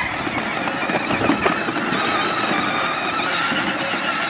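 Power Wheels Yamaha Raptor ride-on toy quad's electric drive motors and plastic gearboxes whining steadily as it drives along.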